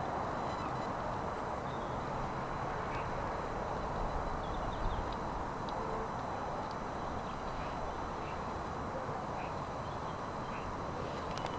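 Steady outdoor background hiss, with faint, short bird calls every second or two.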